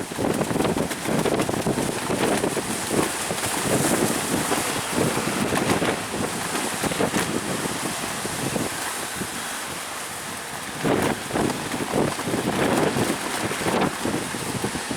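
Strong wind buffeting the microphone in irregular gusts, over the steady rush of high surf breaking.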